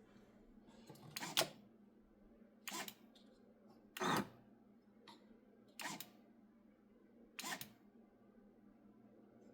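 Flood loader mechanism cycling under its automated control board: five short, sharp mechanical clacks about a second and a half apart, over a faint steady hum.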